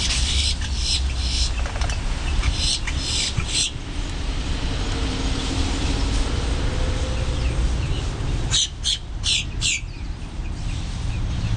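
Boat-tailed grackles calling: a run of short, harsh notes in the first four seconds, then four more quick ones about eight and a half seconds in, over a steady low rumble.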